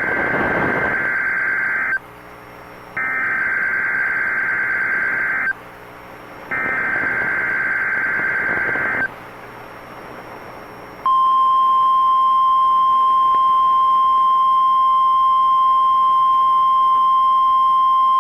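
Emergency Alert System SAME header: three bursts of screeching digital data tones, about a second apart. About eleven seconds in, the steady 1050 Hz NOAA Weather Radio alert tone starts, signalling an incoming tornado watch.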